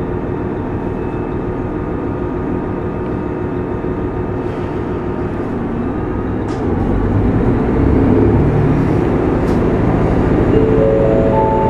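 JR Central KiHa 25 diesel railcar's engine running steadily, then about seven seconds in its note deepens and grows louder as the engine takes power to pull away. Near the end a short chime of four notes steps upward.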